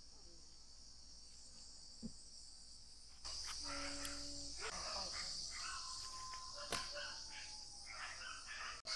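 Near silence for about three seconds, then a steady high-pitched chorus of crickets comes in and carries on, with a few faint short tones and clicks over it.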